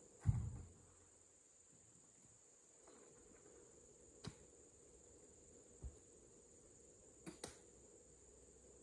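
Oil palm fruit bunches thudding into a truck bed as they are loaded by hand: one heavy thud just after the start, then a few lighter knocks. A steady high-pitched insect drone runs underneath.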